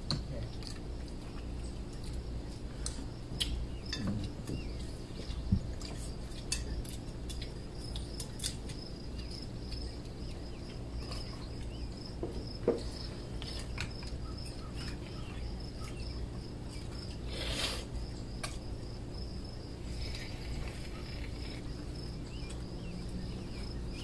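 Scattered clicks and clinks of mussel shells and cutlery against plates as people eat, over a steady high-pitched insect trill and a low steady hum. A short rustling burst comes about 17 seconds in.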